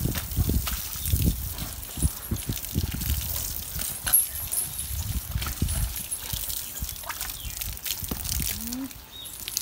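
Water from a hose splashing onto a baby elephant's head and into a mud puddle, with irregular wet slaps and squelches as the elephant shifts and gets up in the mud. A short rising squeak near the end.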